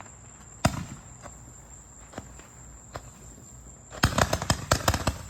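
A 500 gram multi-shot firework cake firing. One sharp bang comes about a second in, then near the end a rapid run of cracks and bangs as a volley goes off.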